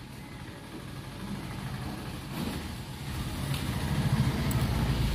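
Auto-rickshaw engine running as the three-wheeler comes closer, getting steadily louder, most of all from about three seconds in.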